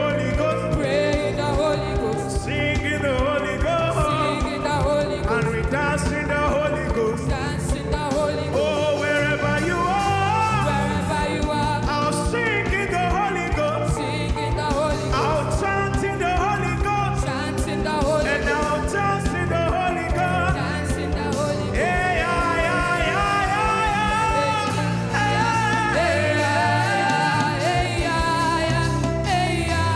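Live gospel worship music: singing voices over keyboard, bass and a steady drum beat.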